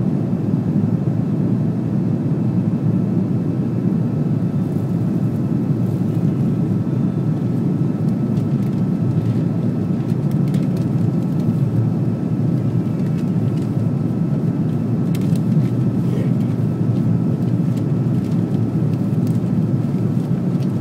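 Airbus A330-300 airliner cabin noise: a steady rumble of engines and airflow heard from inside the cabin, with a faint high steady whine over it.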